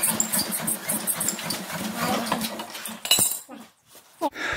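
13 hp single-cylinder Hatz diesel engine turned over fast by hand crank, a rapid metallic clatter of clicks over a steady hum, without catching: a failed cold start. The cranking stops about three seconds in.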